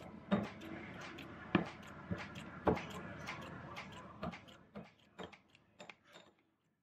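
Kitchen scissors snipping soft abalone innards in a small ceramic dish: a run of irregular sharp clicks as the blades close and tap against the dish. The three loudest come in the first three seconds, then the clicks thin out and stop near the end.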